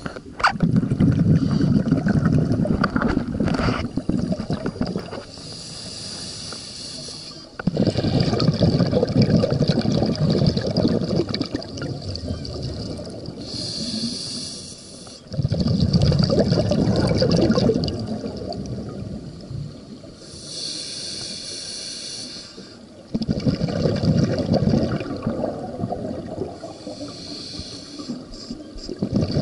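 Scuba regulator breathing heard underwater: a hissing inhale through the regulator, then a long, louder bubbling rumble of exhaled air. About four full breaths, one every seven to eight seconds.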